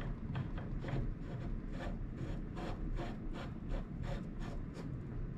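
Propeller-style kayak pedal drive turned slowly by hand, its freshly greased gears and crank giving a regular rubbing, scraping sound about two or three strokes a second.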